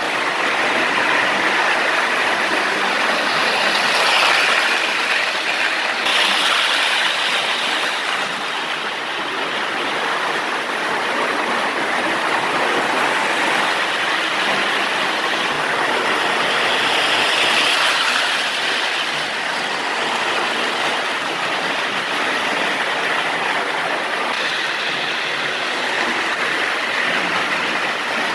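Lionel 221 O-gauge toy steam locomotive running on three-rail track with coaches in tow: a steady whirr of its motor, gears and wheels, rising and falling in loudness every several seconds.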